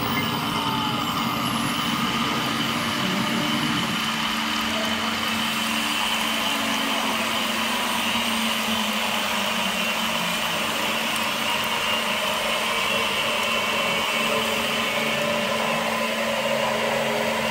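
CNC router running steadily between cuts, its spindle motor and coolant spray giving an even hum with a few steady tones over a hiss, with no cutting into the brass.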